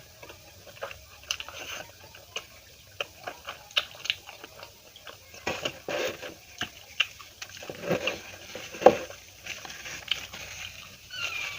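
Close-miked eating: wet mouth clicks and chewing of food, with a run of sharper bites from about five seconds in and one loud click near nine seconds. A cat meows right at the end.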